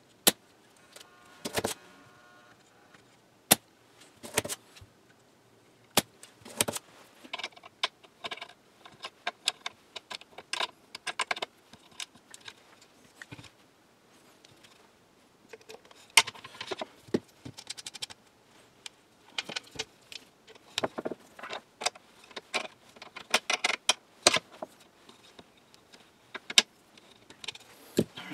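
Small metal screws and nuts clicking and clinking against tools and the workbench as they are taken out and handled with needle-nose pliers, with a brief cordless-drill whir about a second in.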